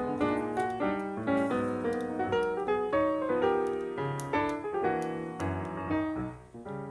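Background music played on piano or keyboard, a run of quick notes with a brief dip near the end.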